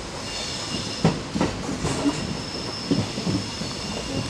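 Express train coach running along the track, heard from its open doorway: a steady rumble of wheels on rail broken by a run of irregular wheel knocks over the rail joints, with a faint thin high ringing above.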